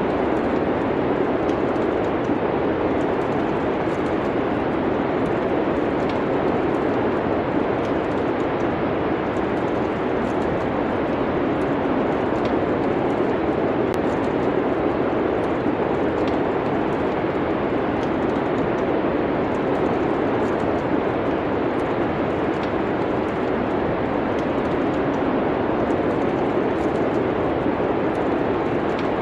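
Steady low rushing noise of wind and snowstorm ambience, with sparse small crackles and pops of a wood fire throughout.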